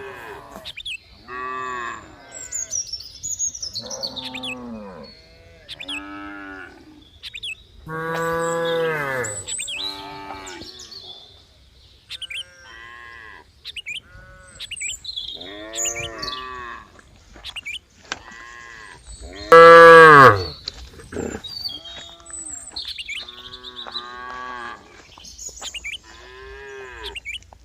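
Several cows mooing one after another, with a call every second or two and some overlapping. Each moo rises and then falls in pitch, and the loudest comes about twenty seconds in.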